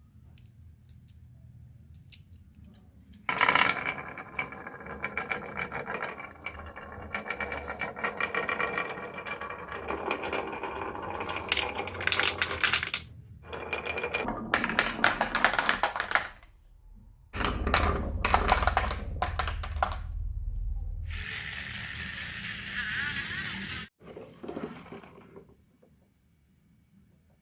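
Marbles rolling and clattering along a wooden marble run, a rattling roll with ringing clicks that starts about three seconds in. It runs in several stretches with brief pauses, then dies away near the end.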